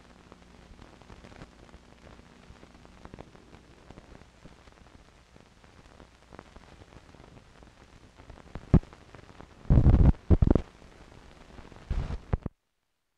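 Crackle and hiss from the run-out of an old film soundtrack, full of small clicks, with a sharp pop about nine seconds in and loud clusters of pops and thumps around ten and twelve seconds, before the sound cuts off to silence.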